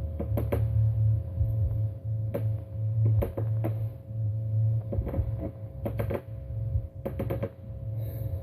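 Electric sparking: a steady low electrical buzz broken by irregular sharp crackling snaps, often two or three in quick succession.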